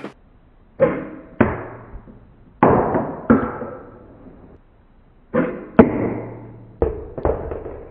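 Plastic toy submarine's push-button water cannon fired again and again: about eight sharp bursts, roughly in pairs, each starting suddenly and fading over half a second or so.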